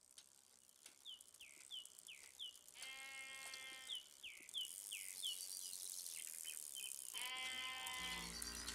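A sheep bleats twice, about three seconds in and again about seven seconds in, among series of short falling chirps like a small bird's, over a faint rising hiss. A low droning music starts near the end.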